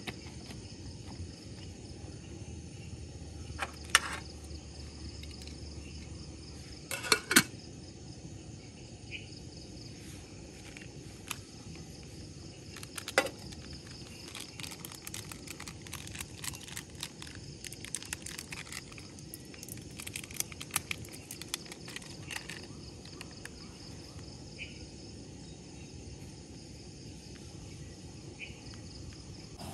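Steady high-pitched drone of rainforest insects. Over it come a few sharp clicks or knocks, about 4 seconds in, twice around 7 seconds and again around 13 seconds, followed by many lighter clicks for the next ten seconds or so.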